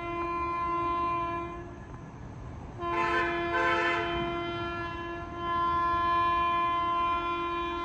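Locomotive horn sounding long blasts as a train approaches. A steady horn note breaks off about two seconds in and comes back about a second later, with a harsher second chord for about a second before it holds steady again.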